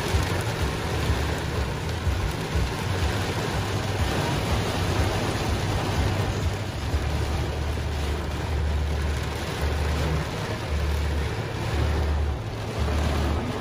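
Heavy rain pelting a truck's windshield and roof, heard from inside the cab, with a low rumble of wind gusts that pulses on and off through the second half.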